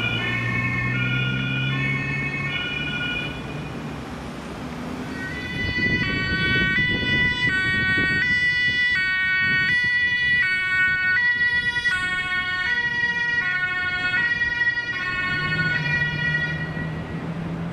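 Two-tone German police siren (Martinshorn) on Bundespolizei vans, stepping back and forth between a high and a low tone. The first siren fades away within the first few seconds, then a second, louder one comes in about five seconds in and fades toward the end. A van engine runs under the start and end.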